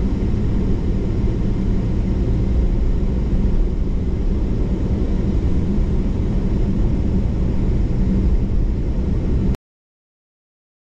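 Steady rumble of a car's engine and road noise heard from inside the moving car. The sound cuts off abruptly to dead silence near the end.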